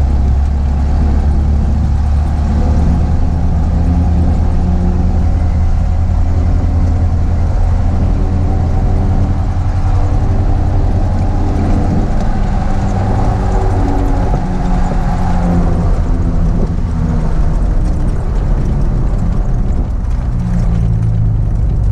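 Ford F-150 pickup driving at speed, heard from inside the cab: the engine pulls under load with a steady drone, along with road noise from mud-terrain tires. The engine has an exhaust leak, which the driver places at the header, and this makes it loud under load.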